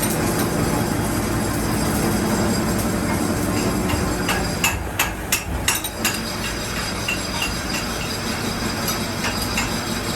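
A handful of sharp knocks in quick succession about halfway through, followed by lighter ticks, over a steady rumbling background noise.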